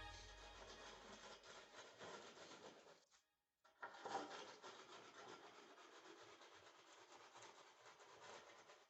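Faint scraping and rubbing of a trowel on sand-cement screed, stopping briefly about three seconds in.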